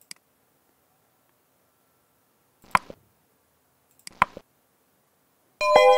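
A couple of computer mouse clicks at the start, then the sound effects of a like-and-subscribe button animation: a sharp click about three seconds in, a few more clicks about four seconds in, and a louder bell-like chime with several ringing tones near the end.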